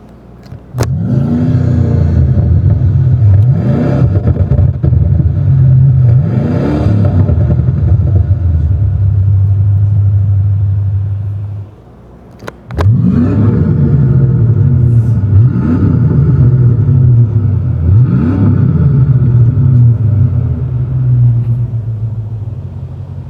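Two Ford Mustang V8 engines, one after the other, each blipped three times so the revs climb and drop back, over a deep idle between blips. A sharp click starts each one.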